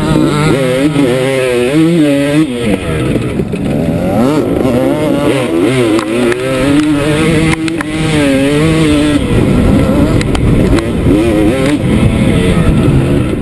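Dirt bike engine revving up and down over and over as it rides through ruts, holding a steadier note for a second or two past the middle, with a rumbling low noise underneath.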